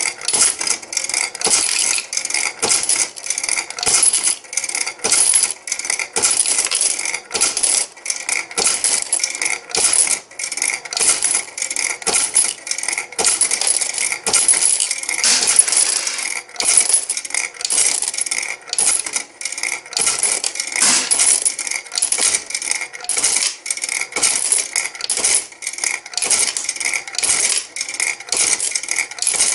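Bally Wulff FOXX slot machine paying out a big win: a steady stream of 2-euro coins clattering into the payout tray, several coins a second, each landing with a metallic clink.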